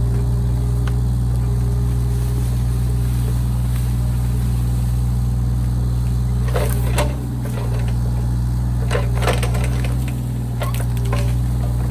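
Mini excavator engine running steadily at working speed, with bursts of crackling and snapping wood about two-thirds of the way in and again near the end, as roots and saplings break.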